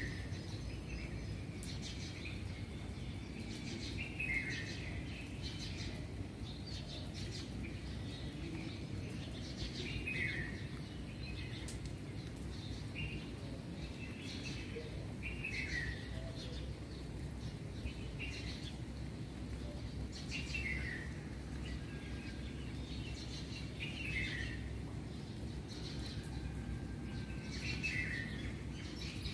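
Bird calling: a short call that falls in pitch, repeated every four to six seconds, over a steady low rumble of background noise.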